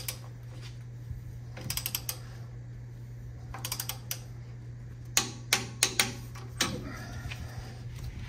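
Ratchet head of a torque wrench clicking in short quick runs as the upper ball joint nut is tightened toward 69 ft-lb, then four or five louder single clicks about five to six seconds in, over a steady low hum.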